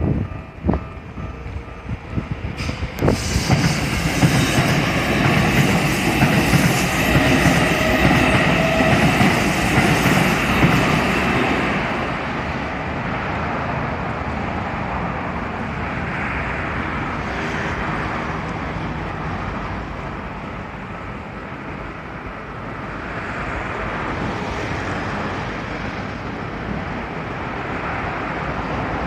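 Keikyu Main Line electric train passing over a level crossing, its wheels clattering over the rail joints. The loud part passes within the first twelve seconds or so, then a steadier, lower rumble carries on.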